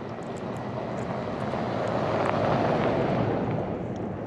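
A pickup truck carrying a camper drives past on a snow-packed road. The sound of its engine and tyres swells to a peak about two and a half seconds in, then fades as it moves away.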